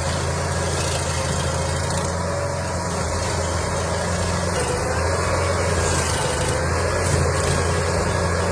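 A large engine running steadily at constant speed, a low even hum that does not change.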